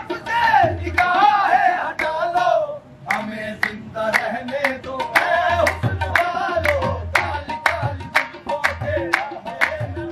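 Live qawwali: singers' voices over a harmonium, with a steady clapped beat running through, about two or three claps a second. The singing is strongest in the first three seconds.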